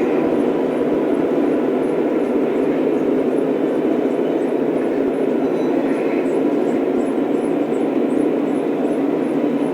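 Lionel O-scale model train running on its track: a steady rumble of motor and wheels, with faint light clicks repeating a few times a second.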